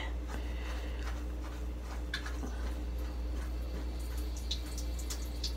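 Soft close-up rustling with scattered faint clicks and crackles over a low steady hum.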